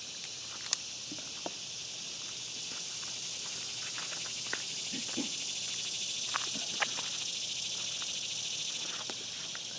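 Steady high-pitched chorus of insects, with a few scattered light clicks and taps.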